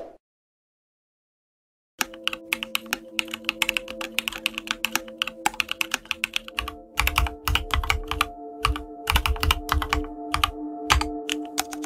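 Computer keyboard typing sound effect: rapid, irregular key clicks that start about two seconds in, over a faint steady hum.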